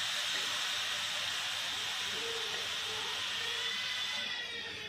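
Mango puree and a little water sizzling steadily in a hot kadhai, bubbling at the edges as it starts to cook.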